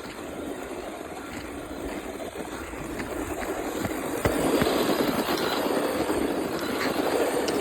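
RC car driving on a hard surface: a steady rough rumble of drivetrain and tyres that grows louder and comes closer, with a sharp knock a little after halfway.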